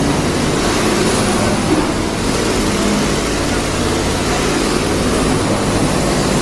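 Heavy machinery running steadily, a constant low hum under an even noise that does not change.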